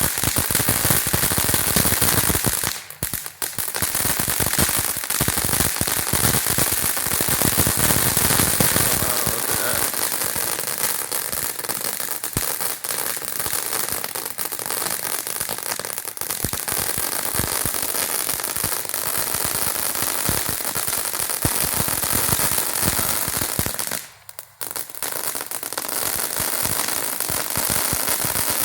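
Shogun Fireworks 'Popcorn' ground fountain going off: a loud, dense, rapid crackling from crackling stars, with a hiss of sparks under it. It thins out briefly twice, about 3 seconds in and again near 24 seconds, then picks back up.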